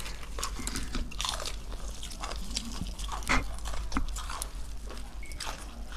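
Crunching and chewing as crispy batter-fried chicken legs (chicken pakora) are bitten into and torn apart, with irregular crackles of the fried coating and one sharper crunch a little past the middle.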